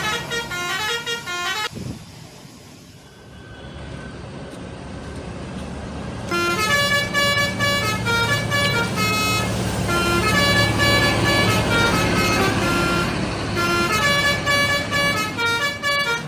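Bus telolet horns: several trumpet horns sounding together in quick stepped notes, cut off suddenly about two seconds in. Engine and road noise then builds until, about six seconds in, a long telolet tune starts, with chords of horn tones changing in steps and repeating.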